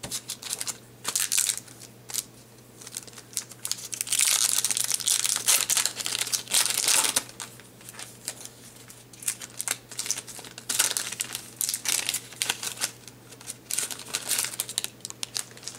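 Wrapper of a trading card pack crinkling and tearing as it is opened by hand, in irregular bursts, busiest about four to seven seconds in.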